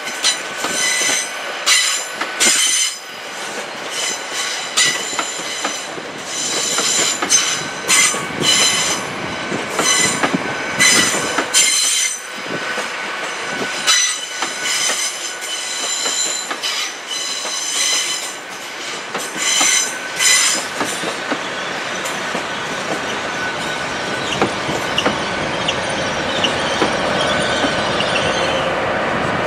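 Steel wheels of a slowly moving passenger train squealing on curved track, in short high-pitched squeals over and over. After about twenty seconds the squealing dies away into a steadier running noise that grows louder toward the end.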